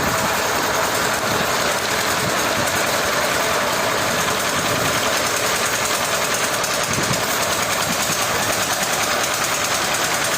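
Machinery running steadily: an even, unbroken mechanical noise with no starts, stops or distinct strikes.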